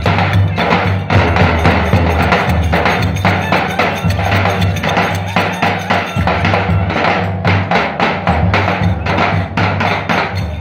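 Loud live music driven by davul drums, with dense, fast strikes and a sharp clacking percussion over a steady low drone.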